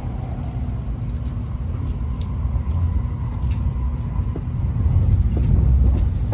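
Shinkansen bullet train running, heard from inside the carriage as a steady low rumble, with a faint steady whine from about a second in to about four seconds. The rumble grows a little louder near the end.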